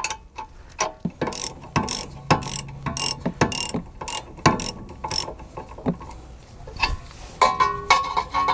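Socket ratchet wrench clicking through a run of quick back-and-forth strokes, undoing the rear brake caliper's slide bolt while a ring spanner holds the nut on the other side. The strokes ease off after about five seconds, followed by a few scattered metal clicks.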